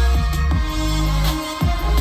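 Electronic music with heavy bass played through a BlitzWolf BW-WA5 Bluetooth speaker in a sound test: sustained deep bass notes under a beat, with a booming kick about every second.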